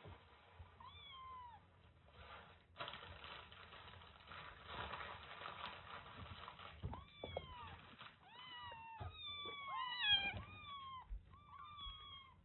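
Young kittens mewing: short, high, falling mews, one about a second in, then many in quick overlapping succession through the second half, loudest around ten seconds in. Before the mewing, a scratchy rustle of movement.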